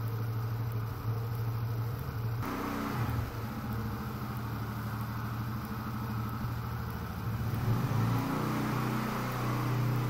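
An engine running steadily, with a low hum whose pitch shifts about two and a half seconds in and again near eight seconds.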